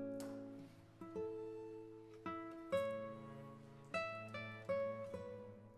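Background music on a plucked guitar: single notes and chords ringing out and fading one after another.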